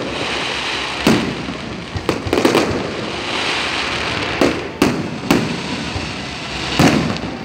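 Fireworks display: aerial shells bursting in a string of sharp bangs at irregular intervals, about eight in all, over a steady hiss.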